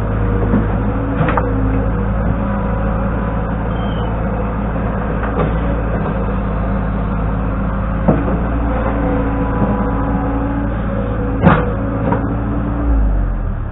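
LX665 skid steer loader's diesel engine running steadily under work, with several sharp knocks from the machine as it handles dirt. The loudest knock comes a little before the end, and the engine note drops just after it.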